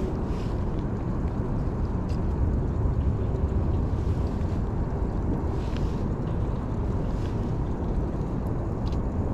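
Steady low rumbling outdoor noise, its level flickering, with a few faint ticks.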